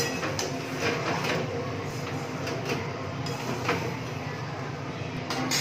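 Metal spatula scraping and clinking against a steel kadai as chicken is stirred while frying in spices, in irregular strokes over a steady hiss of the frying. A sharp clink sounds right at the start.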